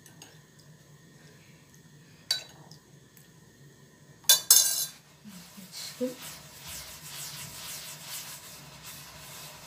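A metal spoon clinks lightly a few times against a clay platter as water is sprinkled onto flour, with a sharp clatter of the spoon about four and a half seconds in. Then comes a steady rasping swish of hands rubbing the moistened flour against the platter, rolling it into small grains as for couscous.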